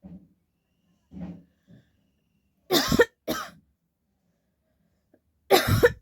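A person coughing on purpose, faked coughs. After a few faint sounds there are two loud coughs close together about three seconds in, and another loud cough near the end.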